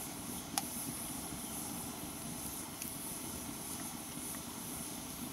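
Wood fire burning with a steady low rush and a few sharp crackles, the loudest about half a second in.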